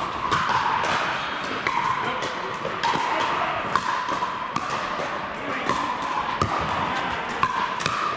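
Pickleball paddles striking the hard plastic ball in a rally, sharp pocks at irregular intervals, with more hits from neighbouring courts and a steady din of play echoing in a large hall.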